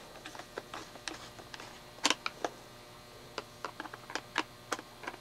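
Screw being worked into a corner of a plastic FPV goggle housing by hand: scattered, irregular light clicks and taps of the tool and fingers on the plastic, with a few sharper clicks about two seconds in.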